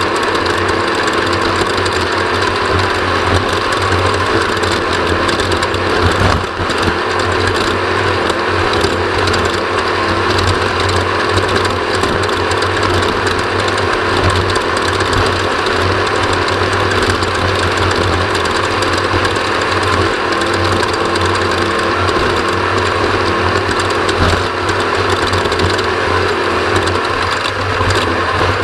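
Off-road race vehicle's engine running steadily at speed, a constant loud mechanical din.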